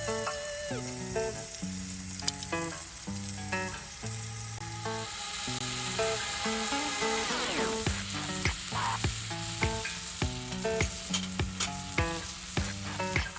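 Food sizzling as it fries in a pan, the sizzle swelling about five seconds in, with sharp clicks from about halfway on. Background music plays throughout.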